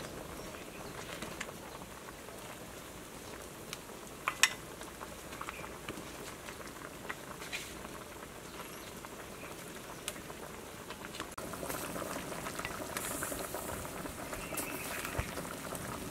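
Bamboo shoot and pork stew bubbling at the boil in a large steel pot, a steady bubbling that grows louder past the middle, with a few sharp clinks of the ladle.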